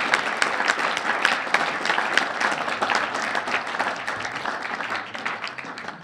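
Audience applauding, the clapping dense at first and thinning and fading toward the end.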